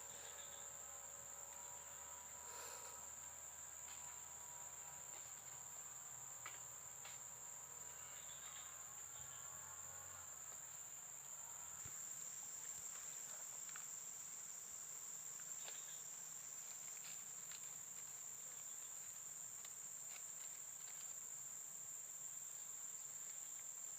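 A steady, high-pitched chorus of insects, crickets by their sound, running without a break, with fainter lower held tones that stop about ten seconds in and a few soft clicks.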